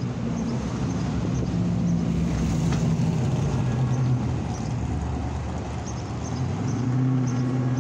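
Cars driving by at a street railroad crossing, with a steady low engine hum underneath.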